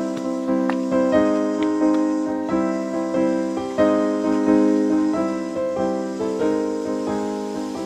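Background piano music: a gentle melody of separate notes, each fading after it is struck.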